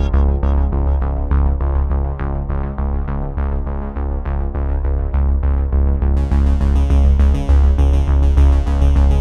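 Synthesizer-led electronic background music with a steady, heavy bass and repeated keyboard notes. The high end drops away at the start and comes back about six seconds in.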